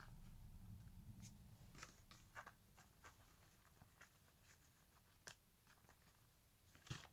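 Faint, irregular clicks and crunches of a pet lizard chewing a fruit beetle grub, the loudest near the end, over a faint low hum in the first couple of seconds.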